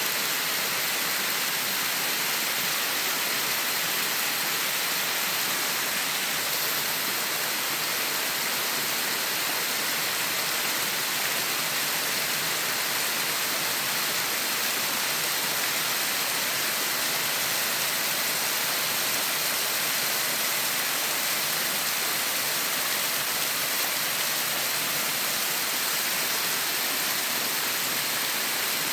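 Daeseung Falls, a mountain-valley waterfall, pouring in a steady, unbroken rush of falling water, brightest in its hissing upper end.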